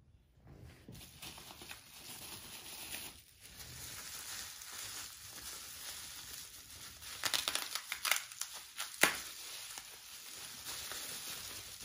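Packing material being crinkled and pulled open by hand as a tooth is unwrapped: a steady rustle with a cluster of sharp crackles about seven to nine seconds in, the loudest near nine seconds.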